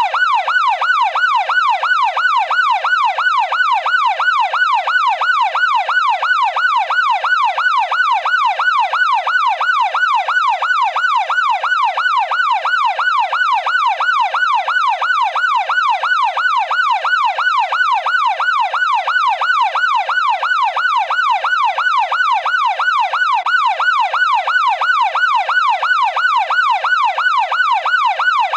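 Police car siren in a fast yelp: a loud tone sweeping evenly up and down about twice a second.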